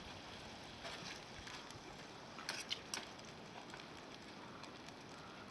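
Wood campfire crackling softly, with a few sharp pops about a second in and a small cluster around two and a half to three seconds in.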